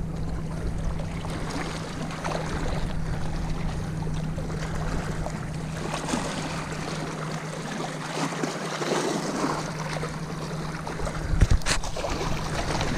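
Wind on the microphone and lake water lapping against shoreline rocks, over a steady low hum. About eleven and a half seconds in, a sharp splash as the hooked bass thrashes at the surface.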